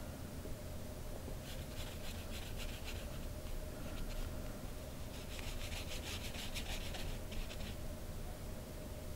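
A small round paintbrush loaded with poster paint stroking across hot-pressed watercolor paper, in two spells of quick short strokes: the first about a second and a half in, the second about five seconds in, each lasting a couple of seconds.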